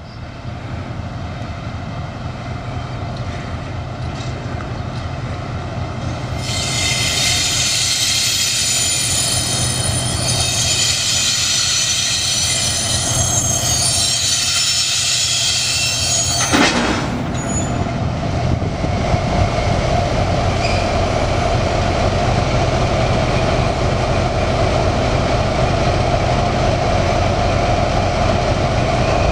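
TGM6D diesel-hydraulic shunting locomotive's engine running with a steady low hum. About a quarter of the way in, a high wheel squeal joins it for about ten seconds and ends in a single sharp metallic clank; after that the engine sound is louder and steady.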